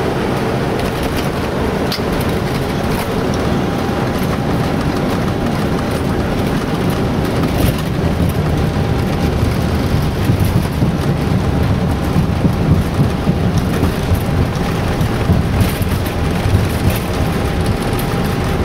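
Steady rushing airflow and engine noise inside an Airbus A321 cockpit on final approach, with the low rumble growing stronger in the second half and a few faint clicks.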